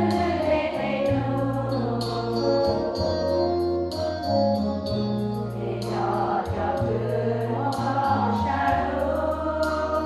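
Women's choir singing a hymn together in sustained notes, with steady low accompanying tones underneath.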